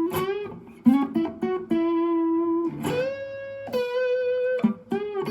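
Electric guitar playing single-note lead phrases through a tube-screamer-style overdrive, with held notes of about a second, bends and slides, and quick runs of notes near the start and end. The guitar is a Strat-type Gear4Music LA Select, played through a Zoom G1Four into a FoxGear Tweed 55 amp and Vox BC108 speaker cab.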